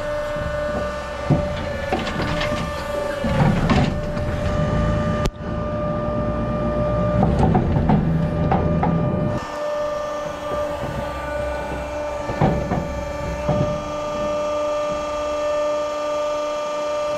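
Overhead hay crane running along its rails over the hay-drying boxes: a steady electric motor whine over rumbling and clattering from the trolley and grab, with a few sharp knocks.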